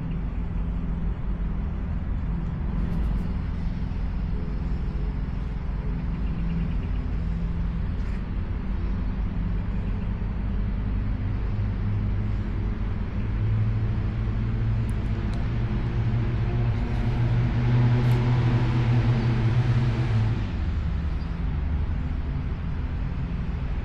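Steady low engine hum, with a louder engine building up about halfway through, peaking two-thirds of the way in, then easing off.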